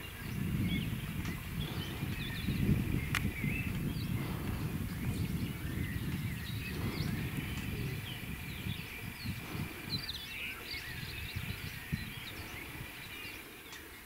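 Wind gusting against the microphone in uneven low rumbles, with several small birds chirping in short high calls throughout. A single sharp click comes about three seconds in.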